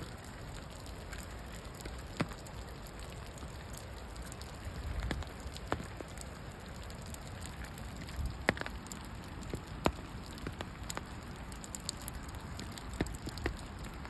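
Scattered raindrops falling, single drops ticking sharply at irregular intervals over a low rumble.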